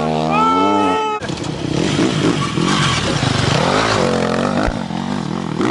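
Dirt bike engine revving, its pitch rising and falling. About a second in the sound breaks off abruptly, and a rougher engine sound follows, revving up and down in swells.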